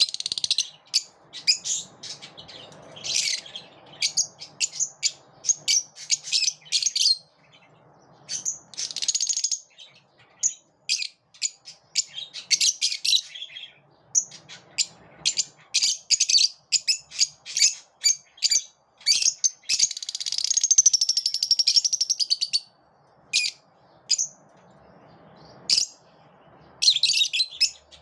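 Lovebirds chirping: rapid, high-pitched chirps in quick runs, with longer bouts of chattering near the start and about twenty seconds in.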